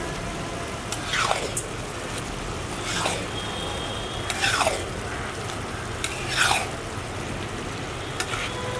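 Thick chopped-tomato sauce being stirred with a spatula in a large iron pan, making wet, squelching stirring sounds over a steady background hiss. Four brief sounds that fall in pitch come at intervals of about a second and a half.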